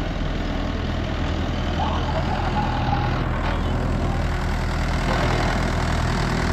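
Heavy vehicle's engine idling steadily with a low, even hum.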